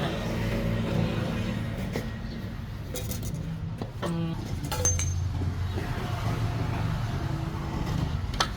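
Car engine running steadily, with a few sharp clicks and knocks over it.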